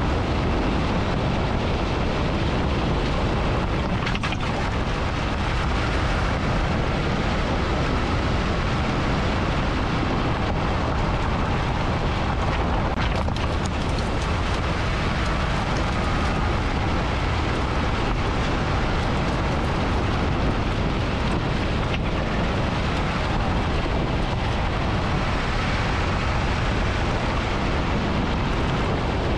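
Road and wind noise of a Jeep Wrangler JKU driving a rough road, picked up by a camera under the vehicle beside the front wheel: a steady noise with no letting up, broken by a couple of sharp knocks about four and thirteen seconds in.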